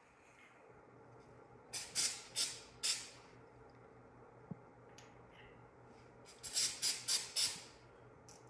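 Short hisses from an aerosol can of Rust Check penetrating spray. Three quick bursts come about two seconds in, then about five more close together near the end.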